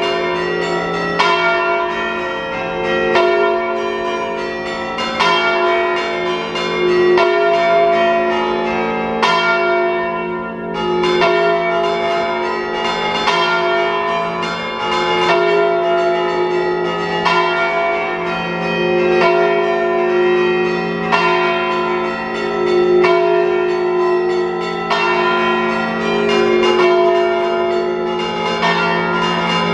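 Church bells from an eight-bell peal tuned in F, struck over and over in a rhythmic pattern at about one stroke a second. Each stroke rings on and overlaps the next, so several bell tones sound together.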